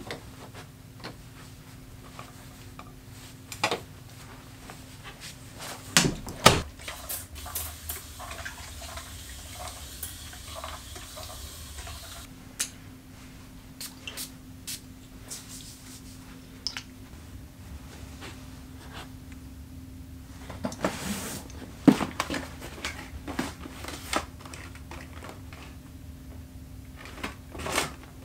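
Small-room handling sounds of someone getting dressed: scattered clicks, knocks and rustles, and a couple of short hissy stretches. A faint steady hum runs underneath.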